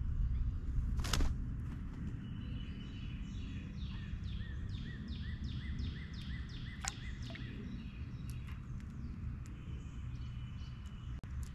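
A songbird sings a fast run of repeated down-slurred whistled notes, about three a second, in the middle, over a steady low outdoor rumble. There is one sharp click about a second in and a few faint ticks later.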